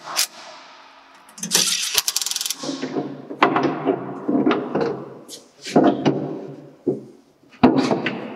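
Cordless impact driver hammering a screw into a sheet-metal cover, a fast run of clicks about two seconds in. Several bursts of metallic clanking and rattling from the panel and lathe cabinet come before and after it.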